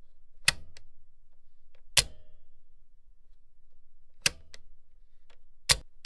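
A machine switch clicked sharply four times at irregular intervals, two of the clicks followed quickly by a softer second click, over a faint low hum.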